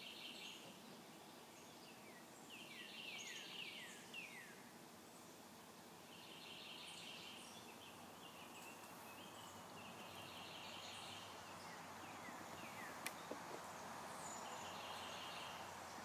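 Backyard songbirds singing: one bird repeats a short, high trill of about a second every three to four seconds, while another gives a run of quick downslurred notes twice. A single sharp click sounds about two-thirds of the way through.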